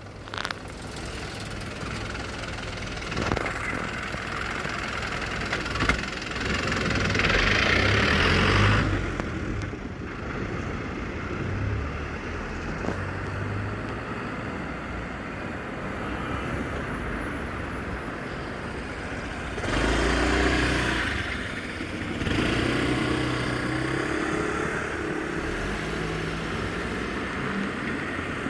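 Street traffic: car engines and tyre noise of vehicles driving past close by. It swells loudest as a car passes about seven to nine seconds in, and again around twenty seconds in.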